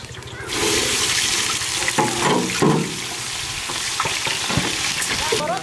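Sliced onions dropped into hot oil in a large steel pan. The oil starts sizzling suddenly about half a second in and keeps hissing steadily, with a short louder sound laid over it about two seconds in.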